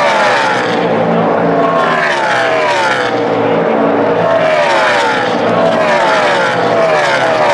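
NASCAR Camping World Truck Series race trucks' V8 engines at racing speed, passing one after another. Each engine note drops in pitch as it goes by.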